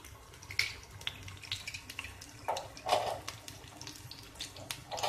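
Sliced onions sizzling and crackling in hot oil in a steel kadai, with a few louder scrapes of a slotted steel spoon stirring them.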